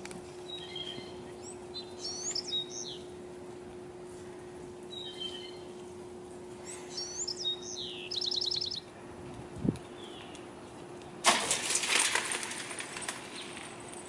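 Songbirds singing short repeated phrases, one ending in a quick trill about eight seconds in, over a faint steady hum that stops partway. Near the end a loud rustling burst lasts about two seconds.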